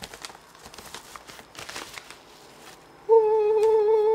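Yellow padded paper envelope rustling and crinkling as a box is slid out of it, then, about three seconds in, a man's long, drawn-out 'ooh'.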